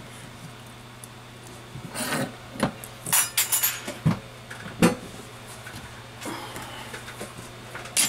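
Handling noises at a repair bench: a string of separate clicks and knocks as a phone logic board is unclamped from its metal-clamped holder and laid down, and tools are moved about. A steady low hum runs underneath.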